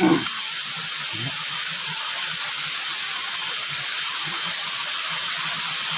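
Steady rush of water pouring over a waterfall, an even hiss with no let-up.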